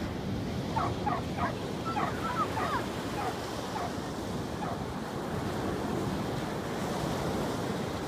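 Sea surf washing on a sandy beach, with wind buffeting the microphone. Over it runs a string of short, high chirping calls, busiest in the first three seconds and sparser after.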